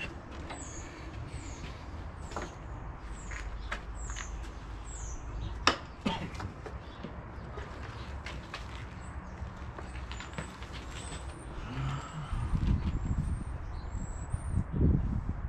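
Scattered clicks and knocks of handling work around a motorcycle, with one sharp knock about six seconds in and low rumbling near the end. Over it a bird chirps in high, falling notes about twice a second, later in shorter chirps. The engine is not running.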